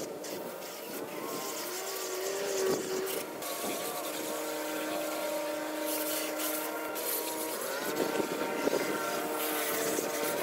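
Garden hose spray nozzle jetting water onto a car to rinse off soap, a steady spray hiss. Under it runs a steady hum of several tones, like a small engine, that shifts up in pitch about eight seconds in.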